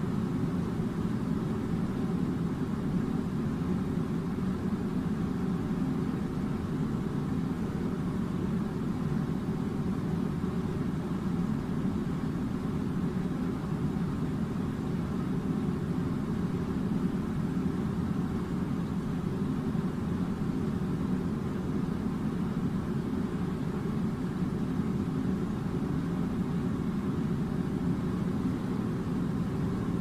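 A steady, unchanging low mechanical drone.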